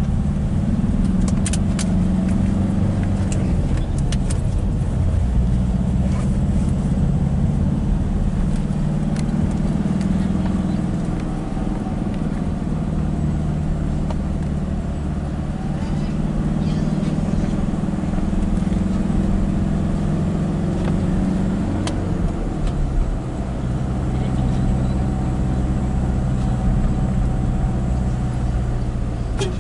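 Engine and road noise inside the cabin of a moving passenger vehicle, the engine's pitch rising and falling as it drives. A few light clicks in the first few seconds.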